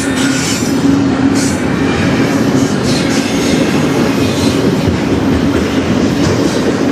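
Double-stack intermodal container cars of a freight train rolling past, steel wheels running on the rails in a steady loud rumble, with brief high screeches a few times.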